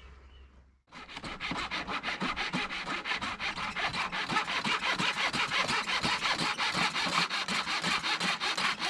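Hand sanding of a wooden boat's rub rail: sandpaper scrubbed back and forth over the wood in quick, steady strokes, about six a second, starting about a second in.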